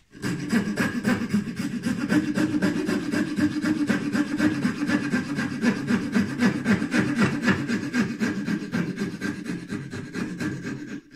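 Coping saw cutting the scribe into a wooden glazing bar: quick, even back-and-forth strokes of a fine-toothed blade through the wood, stopping near the end.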